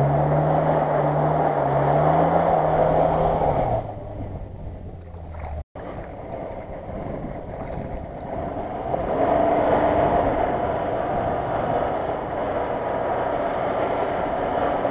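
An SUV engine revving and pulling through shallow floodwater, with the wash of water around the wheels, fading about four seconds in. After a break, a second off-roader's engine and water wash grow louder as it wades through the flood: first a Chevrolet Niva, then a Nissan Patrol.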